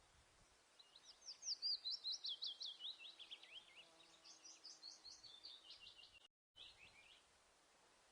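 A songbird singing one long, rapid run of sharp down-slurred chirps, about five a second. It starts about a second in and fades out near the end, over a faint steady hiss. The sound cuts out completely for a split second shortly before the song ends.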